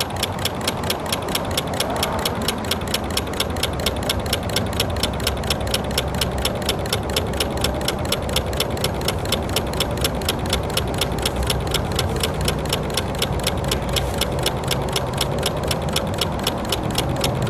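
Home-built Stirling engine running steadily on stored heat with no sunlight on it, its mechanism clicking in a fast, even rhythm.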